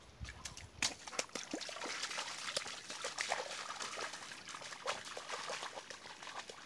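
Irish setter wading and splashing through a shallow stream, a busy, irregular run of splashes from its legs in the water, the sharpest about a second in.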